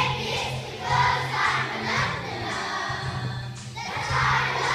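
A group of young children singing together in unison, in phrases of about a second each.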